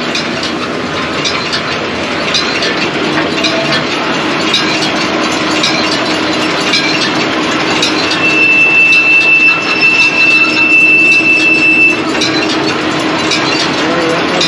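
John Deere 459 round baler running, its drive chains and rollers clattering steadily, with a high, steady squeal for about four seconds past the middle. The squeal is the noise being hunted down, and its source has not yet been found.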